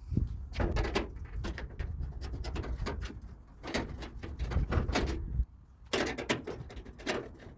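Clicks and rattles of a tool and metal parts as the two screws holding a clothes dryer's door are taken out, with a low rumble under the first five seconds or so and more clicks near the end.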